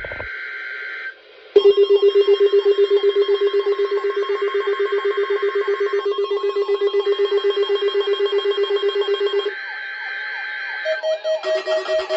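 Weather radio receivers set off by the Required Weekly Test's alert code. A rapidly pulsing alarm beep with a warbling sweep over it starts about a second and a half in and runs for about eight seconds. The warbling continues briefly after the beep stops, and near the end a two-tone high-low pulsing alarm begins. A short buzzing data burst sounds at the start and again after the pulsing beep stops.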